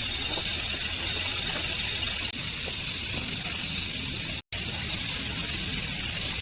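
Steady forest ambience: a high, even insect buzz over a low rumble, cutting out for a split second about four and a half seconds in.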